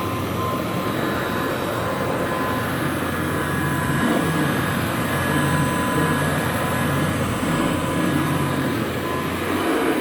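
Rebuilt 1957 Kirby Model 517 upright vacuum cleaner running steadily, a loud motor-and-fan noise with a faint steady whine. From about four seconds in it grows a little louder and wavers.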